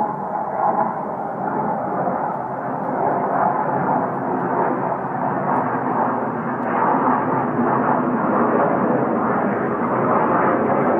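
Jet noise from a JAS 39 Gripen fighter's single Volvo RM12 turbofan as it flies overhead: loud and steady, growing a little louder near the end.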